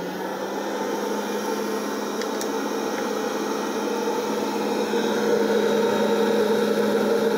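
1200-watt hot-air popcorn popper running steadily just after being switched on: its fan motor hums at a steady pitch under a rush of blown air while the kernels heat and have not yet started popping.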